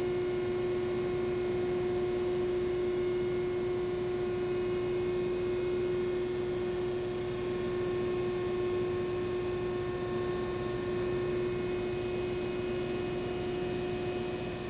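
Ship's steering gear machinery running: a steady hum with one strong constant tone and fainter higher tones over an even mechanical rush, no change throughout.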